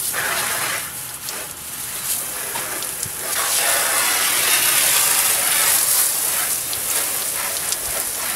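Pressure-washer spray hitting the epoxy bottom of a J24 sailboat's hull, rinsing off an oxalic acid cleaning mix. A steady hiss that grows louder about three seconds in.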